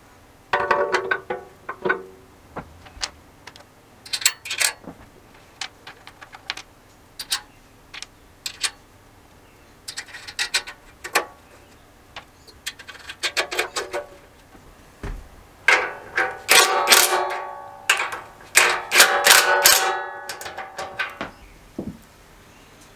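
Metal parts and hand tools clinking and clattering in irregular bursts, several knocks ringing briefly, busiest from about 16 to 21 seconds in: hand work on a small engine being assembled, not the engine running.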